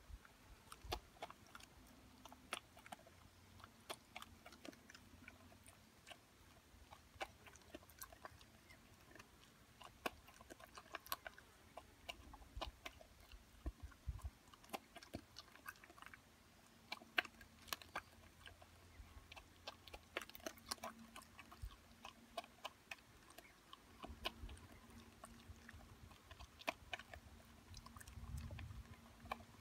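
A dog chewing and crunching maize kernels: an irregular run of sharp crunches, several a second.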